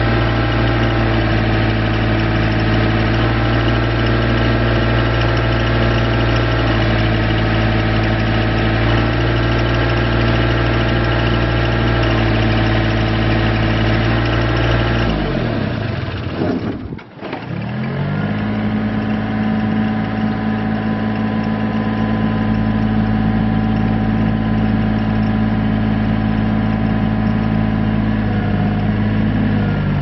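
Diesel engine of a 2001 Komatsu PC35R-8 mini excavator idling steadily, heard at the exhaust pipe. About halfway through, the engine winds down almost to a stop, then starts again within about two seconds and settles back to a steady idle.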